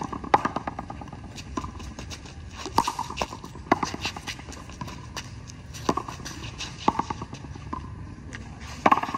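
Frontón a mano rally: sharp smacks of bare hands striking the hard rubber ball and of the ball hitting the concrete wall and court, coming at irregular intervals with a brief ring after some of them.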